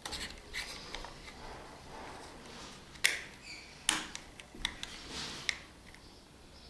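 Small plastic and metal parts of a tape-binder tying tool's head clicking and rustling as they are pressed together by hand, with a few sharp clicks about a second apart in the second half.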